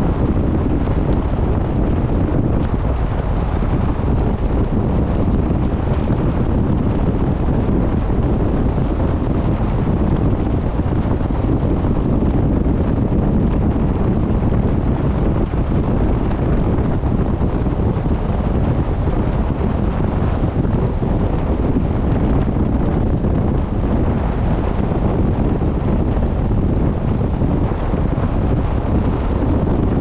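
Steady wind buffeting the microphone, a low rumbling rush, over the wash of the open sea.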